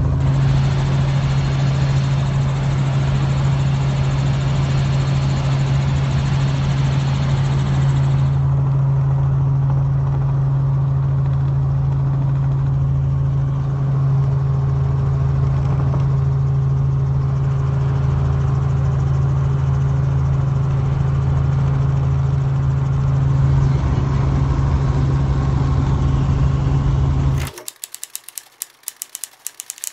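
Helicopter in flight: a steady, loud drone of rotor and engine with a strong low hum. Near the end it cuts off suddenly and gives way to a rapid run of sharp clicks.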